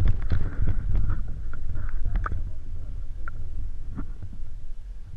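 Underwater ambience heard through a GoPro's waterproof housing: a steady low rumble with scattered faint clicks and ticks.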